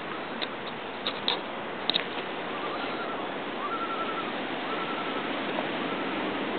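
Steady rush of surf along a rocky ocean shore. A few sharp clicks come in the first two seconds, and several faint, short whistled notes sound near the middle.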